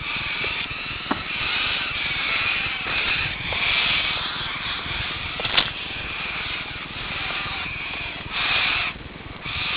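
Road noise from a moving vehicle: a steady hiss of tyres and wind that swells a little twice, with a couple of light knocks.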